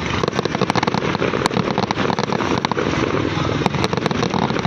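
Fireworks going off in quick succession: many sharp pops and cracks packed close together over a steady noisy rumble.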